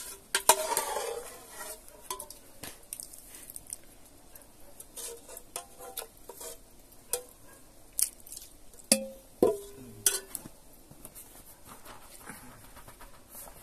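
Metal spoon or ladle clinking and scraping against a large cooking pot in scattered knocks while gravy and rice are layered for biryani. One knock about two-thirds of the way through rings briefly.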